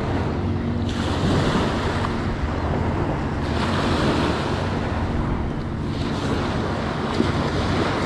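Small waves breaking and washing up on a sandy beach. The surf swells louder about a second in and again past the halfway point.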